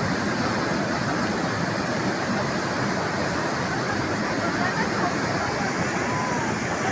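Flash-flood water rushing: a steady, dense rush that does not let up.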